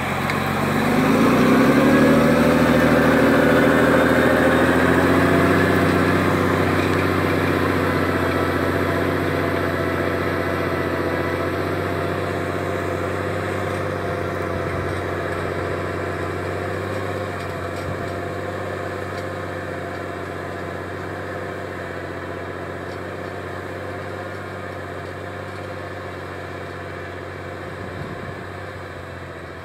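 Belarus MTZ 1221 tractor's six-cylinder diesel engine working under load as it pulls a subsoiler through the ground. The engine note rises over the first couple of seconds, then holds steady and grows gradually fainter as the tractor moves away.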